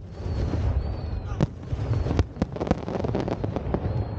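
Aerial fireworks going off: two sharp bangs, then a quick run of crackling pops from about two and a half seconds in.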